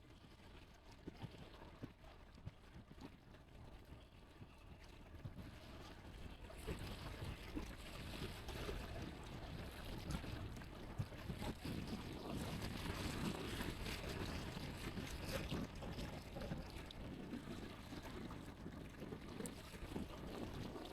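Gusty wind rumbling on the microphone, coming in about six seconds in after a nearly quiet start with a few faint ticks.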